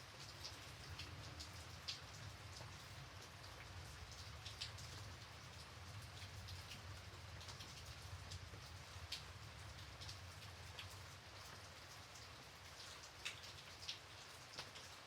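Gentle, light rain falling steadily in a soft hiss, with scattered individual drops ticking sharply close by.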